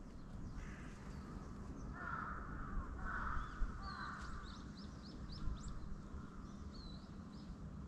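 A crow cawing three times in quick succession about two seconds in, followed by small birds chirping high and fast, over a low background rumble.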